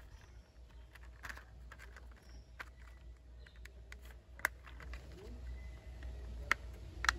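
Light plastic clicks and taps as the two halves of a cheap press-fit plastic toy dump truck are pushed and snapped together by hand: a few scattered sharp clicks, the sharpest about four and a half seconds in.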